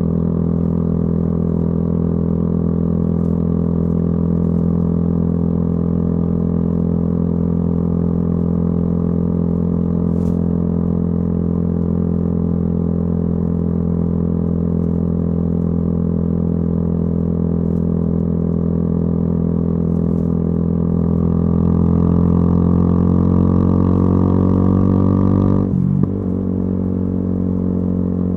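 Yamaha YZF-R125's single-cylinder four-stroke engine through a modified exhaust, running at steady revs while riding. From about 21 seconds in it rises in pitch and gets louder under throttle, then breaks off abruptly near the end in what sounds like a gear change, and settles back to a steady run.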